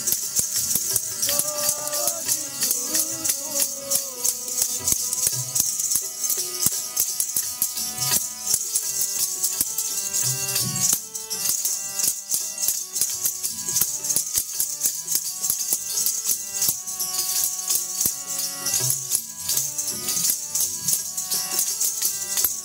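Sikh kirtan music: a fast, constant jingling rattle keeps the rhythm under steady held notes, with a voice singing a wavering line in the first few seconds.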